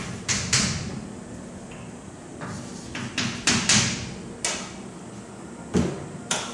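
Short scratchy strokes of writing by hand, coming irregularly, a few a second.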